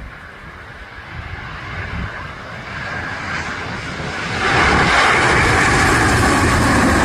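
Airbus A350's Rolls-Royce Trent XWB jet engines on approach as the airliner passes low overhead with its landing gear down: faint at first, building, then loud from about four and a half seconds in.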